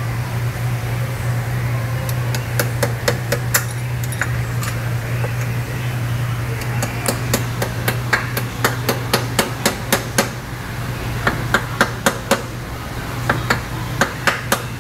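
Hammer tapping on metal: runs of sharp strikes, some in quick succession, starting about two seconds in, over a steady low hum.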